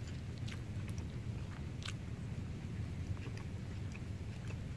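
A person biting into and chewing a glazed smoked turkey leg, with a few faint, short clicks of skin and meat tearing over steady low background noise.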